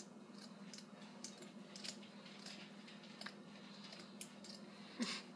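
Scissors snipping through a thick cloth: faint, irregular short clicks over a low steady hum, with one brief louder sound near the end.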